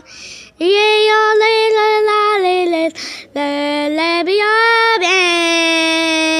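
A high voice singing long, held notes in a slow melody, with a short breath before the first note and another about three seconds in.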